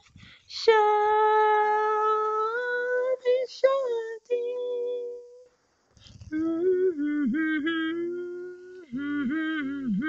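A solo voice singing a wordless melody with no accompaniment. It opens on a long held note, falls silent briefly near the middle, then carries on with a lower, wavering line.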